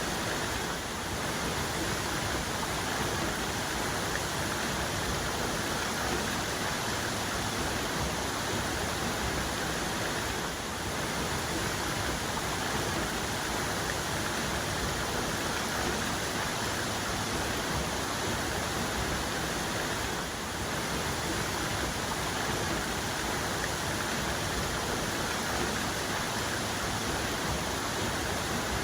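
A waterfall's main cascade pouring steadily, an even rushing wash of falling water with no breaks.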